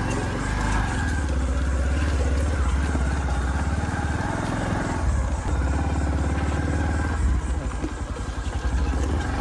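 Bajaj CT 100 motorcycle's single-cylinder four-stroke engine running at low speed over a rough dirt track. The sound dips and turns uneven about eight seconds in, then steadies again.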